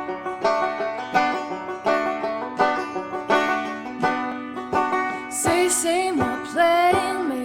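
Background song led by plucked strings picking a steady repeated pattern. A voice comes in singing about five seconds in.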